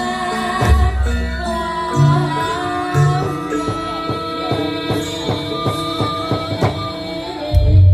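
Javanese gamelan ensemble playing: ringing metallophone tones over regular drum strokes, with deep low booms about a second in, at two and at three seconds, and a strong deep stroke near the end.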